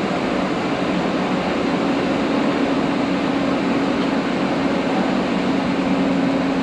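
Steady machinery drone with a low hum that comes in about two seconds in and holds.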